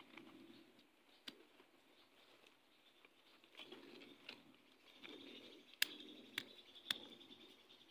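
Sharp knocks of a small hand-held stone striking garlic cloves against a larger flat stone, crushing them. There is one knock early on, then three louder ones close together about six to seven seconds in.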